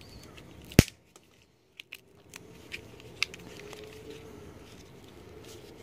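Flathead screwdriver prying at the plastic housing of a CRT television's deflection yoke. One sharp click comes about a second in, then scattered light clicks and scrapes of metal on plastic.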